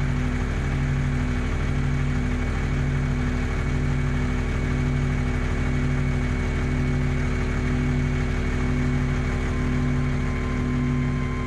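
A low, steady ambient music drone of several held tones, swelling about once a second.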